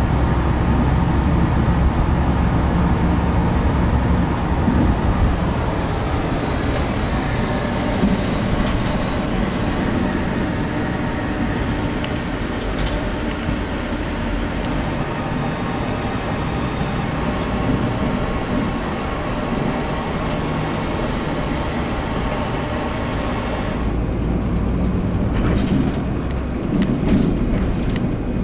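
A moving coach's engine and road noise heard from inside the cabin: a steady low rumble with a few brief high squeals and sharp clicks. The sound changes abruptly about four seconds before the end.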